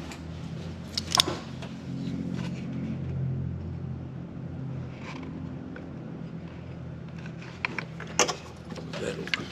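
A few sharp plastic and metal clicks and clinks from hands working the battery cables and red terminal cover of a car battery. The loudest comes about a second in and several more come near the end, over a steady low hum.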